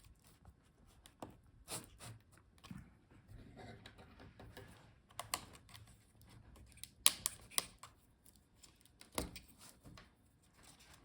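Faint, irregular small clicks and taps of cable connectors being unlatched and pulled from a laptop motherboard, with two sharper clicks in the second half.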